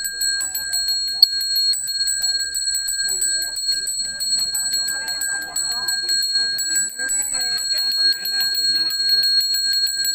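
A Balinese priest's brass handbell (genta) rung rapidly and without a break, a bright steady ringing of fast strokes, over murmured voices.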